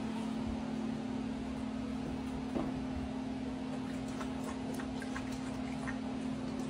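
A dog lapping from a bowl, a few faint soft licks in the second half, over a steady low hum.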